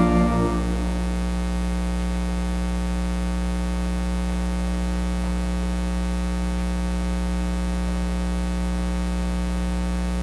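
Organ's last chord dies away in the first second. It leaves a steady electrical mains hum with a buzz of overtones, which cuts off abruptly at the very end.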